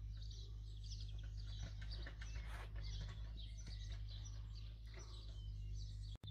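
Small garden birds singing and chirping, many short high calls overlapping, over a low steady rumble.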